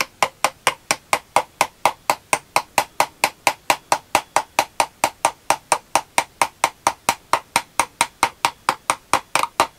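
Steady, rapid light metal tapping, about four or five taps a second, each with a short ring: a thin drift tapping a bearing shim into place beside the differential carrier in an Austin A40 Farina final-drive housing.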